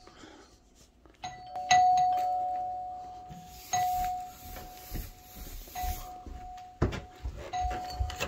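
Doorbell chime rung again and again, about every two seconds, each ring fading slowly, with footsteps thudding on stairs and a sharp thump about seven seconds in.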